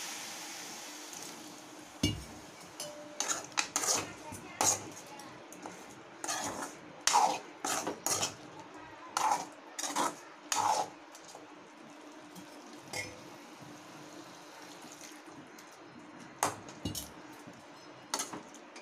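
A metal spoon knocks and scrapes against a cooking pan as a raw plantain stir-fry is stirred, in irregular clusters of clinks with a lull of a few seconds late on. At the very start a sizzle dies away from water just sprinkled onto the hot oil.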